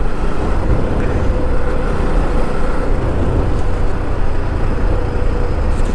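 Motorcycle on the move, with steady wind rush on the rider's microphone and a faint steady hum.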